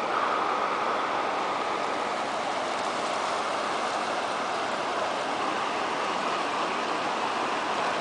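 Floodwater flowing across a submerged road: a steady, even rush of water.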